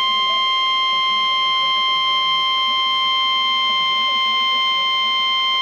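NOAA Weather Radio 1050 Hz warning alarm tone, sounded as part of the required weekly test: a single steady high tone held without a break.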